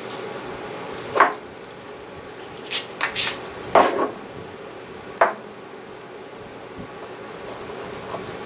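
A few short knocks and clicks from steel gun parts being handled and wiped down during cleaning, over a steady low hum.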